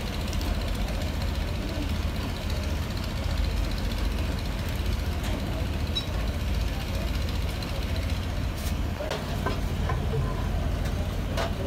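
Steady low rumble of an engine idling, with a few faint clicks in the last few seconds.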